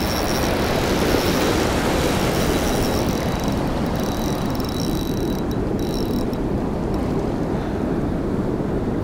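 Steady rushing of churning, turbulent river water.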